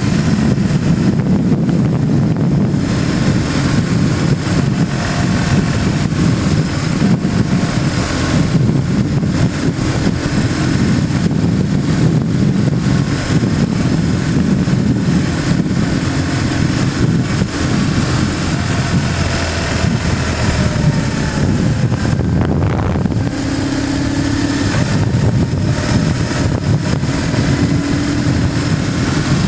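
BMW GS motorcycle engine running steadily under way, with wind noise on the microphone over it.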